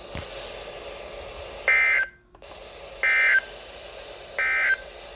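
Three identical short bursts of EAS SAME header data, about a second apart, from a NOAA Weather Radio broadcast over a faint steady hiss. It is the coded header that opens an emergency alert, here announcing a severe thunderstorm warning.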